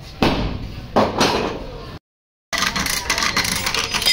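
A few loud metal clanks from a chain lever hoist and its chain hooked to a crumpled car body panel. After a brief break, a dense run of fast clicks follows as the hoist's lever is worked, ratcheting the chain tight to pull the damaged panel out.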